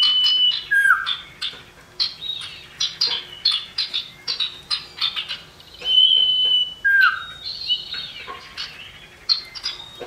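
Common iora calling: twice a long level whistle is followed by a short note sliding down, once at the start and again about six seconds in. Between the whistles come many quick sharp chips and chattering notes.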